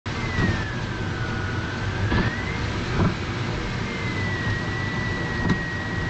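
Road and tyre rumble under a moving car, with four sharp clunks from the front suspension, the knock of a worn sway bar end link. A thin, high steady whine runs along with it.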